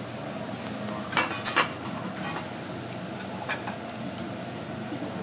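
Vegetables sizzling on a hibachi steel griddle while metal spatulas scrape and clack against the plate, with a quick run of clanks a little over a second in and a few single clicks after.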